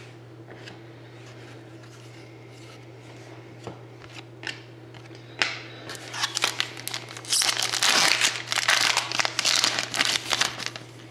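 Light clicks of cards being handled, then from about halfway in a dense run of plastic packaging crinkling and tearing as trading card packs are opened. A low steady hum runs underneath.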